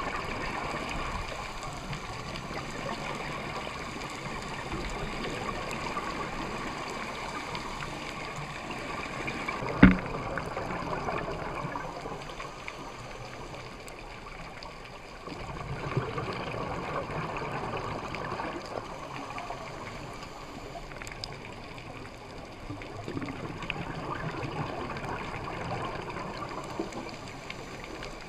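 Underwater scuba ambience: regulator exhaust bubbles gurgling in spells with quieter gaps between breaths. A single sharp knock comes about ten seconds in.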